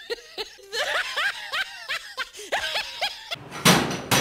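High-pitched snickering laughter in quick rising-and-falling bursts, running until near the end. It then cuts off to a rush of noise with two sharp bangs as a steel gate is handled.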